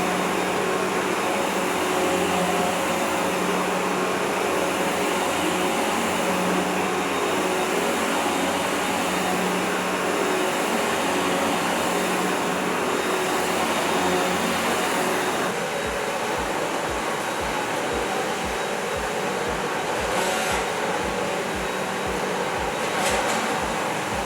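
Vacuum cleaner running steadily. About fifteen seconds in its hum changes and a regular low pulse comes in, about two a second.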